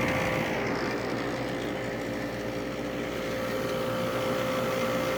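Restored vintage window air conditioner running: the compressor hums steadily with a constant tone, under the even rush of the fan.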